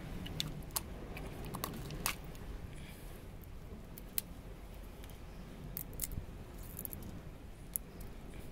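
Sporadic small cracks and clicks of a cooked crab's shell being broken open by hand to get at the leg meat.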